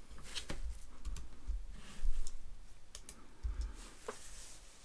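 Computer keyboard: a handful of separate keystrokes with pauses between them, along with a few low thumps.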